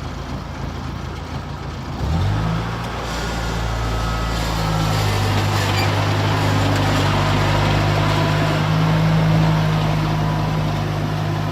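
Engine of a rice-harvesting machine running steadily, picking up revs about two seconds in and then holding a constant drone.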